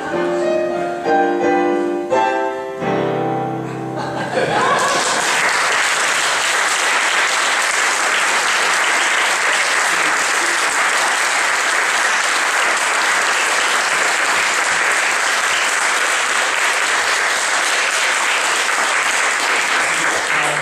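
Piano plays the closing chords of a song. About four seconds in, an audience breaks into steady applause that holds to the end.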